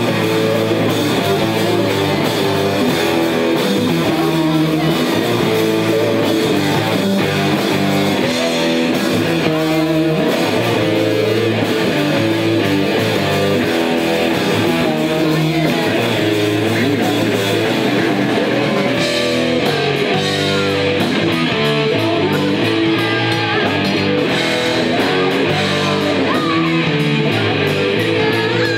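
Live rock band playing: electric guitar, bass and drums, with a woman singing into the microphone. Cymbal hits come through more sharply in the last third.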